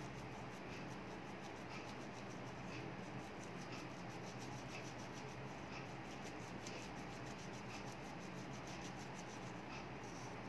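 Faint, steady workshop hum with soft ticks about once a second.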